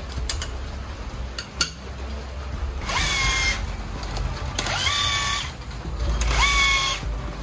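A handheld power tool running in four short bursts about a second and a half apart, each rising quickly to a steady whine. A few sharp metallic clicks come before the first burst.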